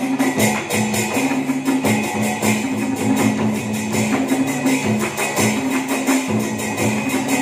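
Live traditional Vietnamese theatre music from a water puppet orchestra: plucked lutes playing sustained notes over drums and cymbals struck rapidly and continuously.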